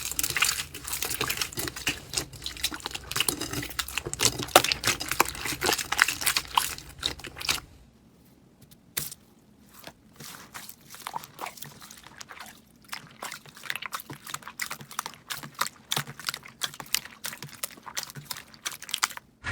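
Slime being squished and worked, making dense wet clicks, crackles and pops; the sound drops quieter after a cut about eight seconds in.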